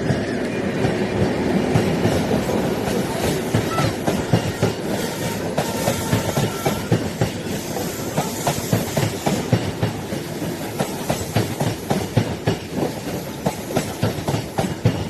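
A passing train's wheels clattering over rail joints and junction pointwork, over a steady rolling rumble, the clatter coming quicker in the second half. A faint wheel squeal shows briefly a few seconds in.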